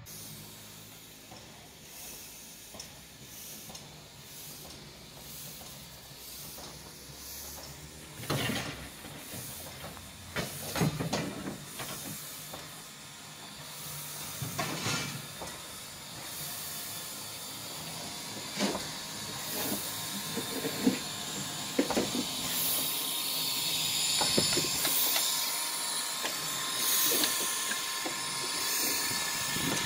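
Soviet L-class steam locomotive (L-2180) standing with steam hissing from around its cylinders and driving wheels, the hiss growing louder near the end. A few sharp metallic knocks and clanks come in the middle.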